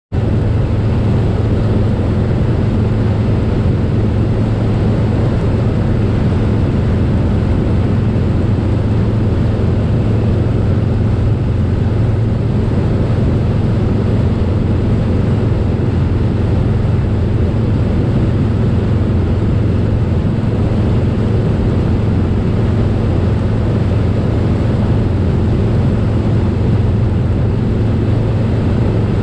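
Harley-Davidson Softail Slim's V-twin engine running steadily at highway cruising speed, mixed with the rush of wind and road noise.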